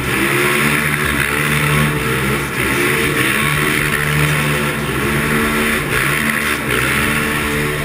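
Kawasaki Prairie 650 ATV's V-twin engine running under throttle, its pitch rising and dipping with the throttle, over a steady hiss of wind and tyres on dirt.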